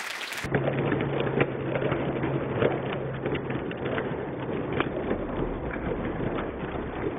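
Studio audience applauding, played back slowed down, so the clapping sounds low and muffled, with a faint steady hum under it for the first few seconds.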